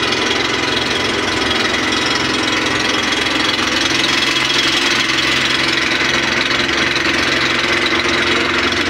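Motorboat's engine running steadily as the boat moves along, a constant mechanical drone with a steady pitched hum.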